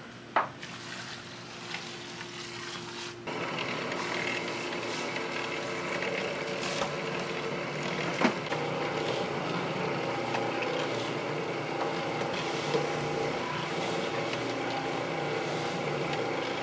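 Commercial dough mixer running, its motor and gearing humming steadily as the dough hook works flour into dough; the sound gets louder about three seconds in. A click near the start and a sharp knock about eight seconds in.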